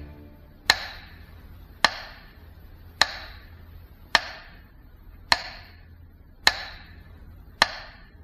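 Sparse background music: a sharp, ticking percussive hit about once a second, each with a short ringing decay, over a faint low drone.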